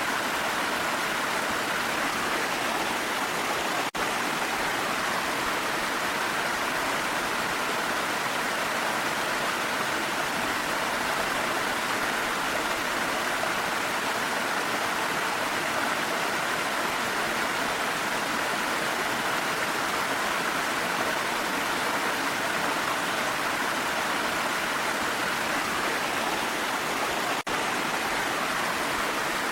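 Steady rush of a waterfall, an even wash of falling water with no pauses except two very brief dips, about 4 seconds in and near the end.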